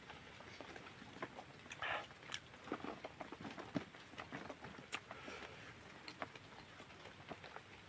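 Close-miked eating sounds: chewing and lip smacks, with scattered soft clicks as fingers gather cooked rice off a banana leaf.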